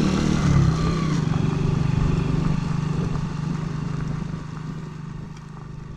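Senke motorcycle's engine running steadily under way, fading out over the last couple of seconds.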